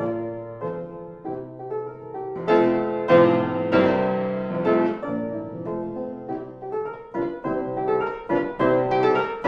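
Background piano music, notes struck one after another and ringing on, louder from about two and a half seconds in.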